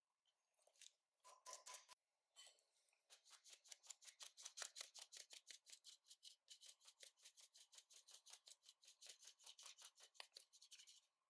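Faint sound of a fine wire-mesh sieve being shaken to sift flour, cocoa powder and baking powder. A few strokes come in the first two seconds, then a steady rapid run of light scratchy strokes, several a second.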